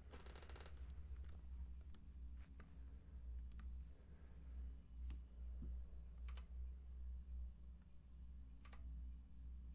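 Faint computer keyboard and mouse clicks: a quick run of clicks in the first second, then single clicks every second or so, over a low steady hum.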